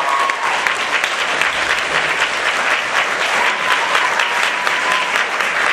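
Audience applauding steadily, with the last sung note of the performance music fading out in the first moment.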